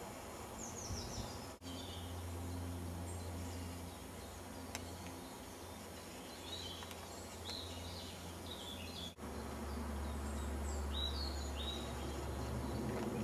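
Small wild birds chirping and calling in short, scattered falling notes over a steady low rumble.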